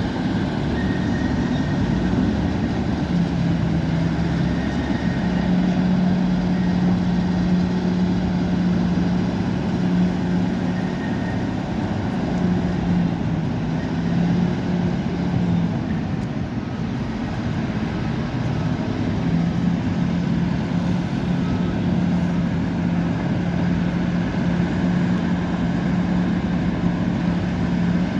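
Bulldozer's diesel engine running steadily with a constant heavy drone. Its pitch dips slightly a few seconds in and again around the middle, then settles back.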